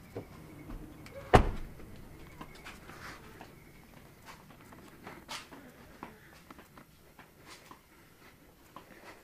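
An SUV's rear passenger door shut with one loud slam about a second and a half in, followed by faint scattered clicks and knocks.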